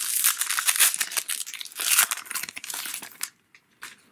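Wrapper of a trading-card pack being torn open and crinkled by hand: a dense crackling that stops after about three seconds, followed by a few faint clicks.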